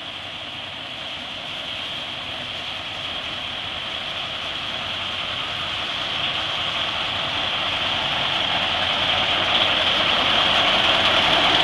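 Small diesel shunting locomotive (Köf) running as it approaches along the track, growing steadily louder throughout, with a steady high whine in its sound.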